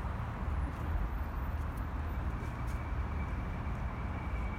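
Steady outdoor city background: a low, uneven rumble of traffic, with a faint steady high tone coming in about halfway through.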